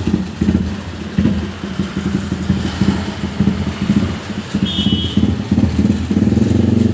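Motorcycle engine running through a homemade exhaust, putting unevenly with throttle blips, then held at a steadier, higher rev near the end.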